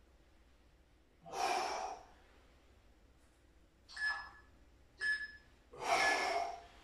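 A man's forceful breaths during roll-up sit-ups: four loud exhalations, two longer and two short, each timed to the effort of curling up.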